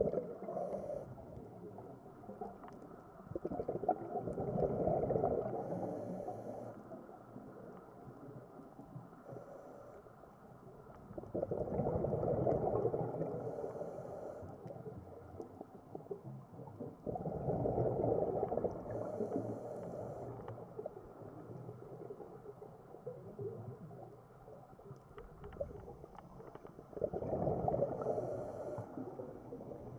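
Scuba diver's breathing heard underwater through the regulator: rumbling, gurgling bursts of exhaled bubbles every several seconds, each lasting a few seconds, with faint hissing between.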